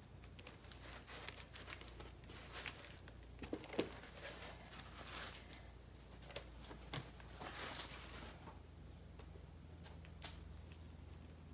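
Faint rustling and crinkling from a paper towel and plastic gloves being handled, with a few light taps, the sharpest about four seconds in.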